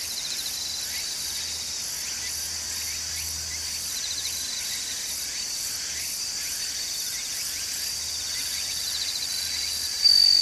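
Crickets chirring in the grass in a steady, high-pitched chorus, with short trills repeating over it every few seconds. One insect's high steady note grows sharply louder near the end.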